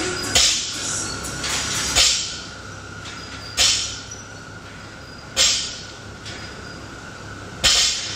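A person's sharp, hissing exhales, one with each toes-to-bar rep on a pull-up bar: five short breaths about every two seconds, over a steady faint hum.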